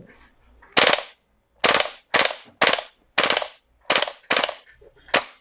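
WE 999C (HK G36C-style) airsoft gas blowback rifle firing in burst mode: eight sharp cracks of the gas release and the bolt cycling, spaced about half a second apart.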